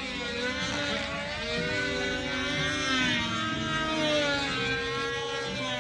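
Small engines of control-line model aircraft running flat out, their high-pitched whine rising and falling as the models circle the pilot.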